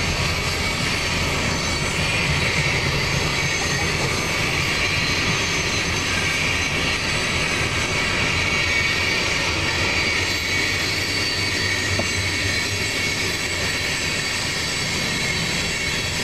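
Freight cars rolling steadily past at a grade crossing: a continuous rumble of steel wheels on rail, with a faint steady high-pitched squeal over it.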